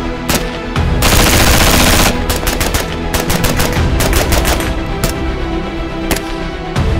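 A suppressed PSA AR-15 in 5.56 firing: a few shots, then a continuous burst of automatic fire about a second in lasting about a second, a rapid string of shots, and single shots near the end. Music plays underneath.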